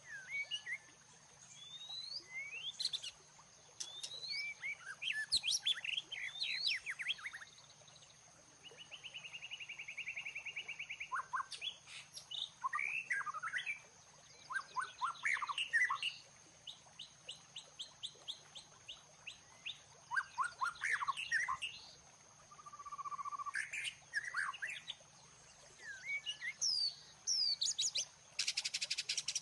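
Songbirds chirping and singing in a string of varied phrases: sweeping whistles, quick trills and runs of short notes, with brief pauses between them. Near the end comes a dense, fast buzzy trill.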